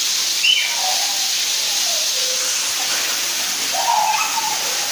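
Steady hiss of hot-spring steam filling a natural sulphur-water steam bath, with faint voices briefly audible.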